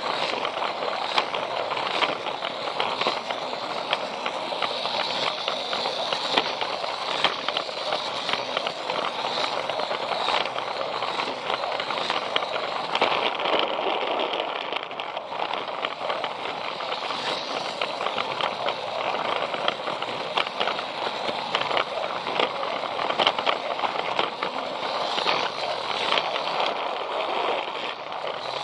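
Plarail battery-powered toy train running along plastic track, heard close up from a camera riding on it: a steady rattling running noise with many small clicks from the wheels and gears.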